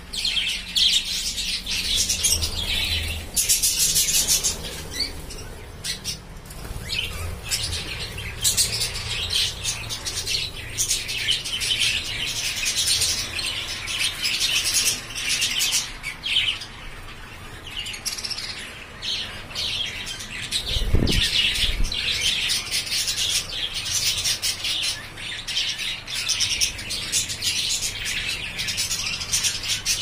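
A flock of budgerigars chattering, a dense, continuous twittering of rapid high chirps and squawks. A brief low thump comes about two-thirds of the way through.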